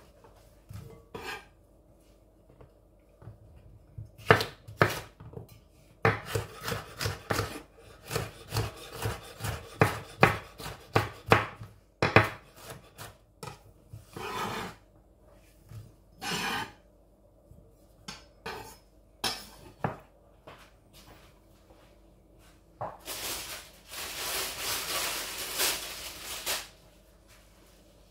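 Chef's knife chopping sweet pepper on a wooden cutting board: a quick run of knocks in the middle, then a few single strokes. Near the end comes a longer scraping across the board, with the chopped pieces cleared off it.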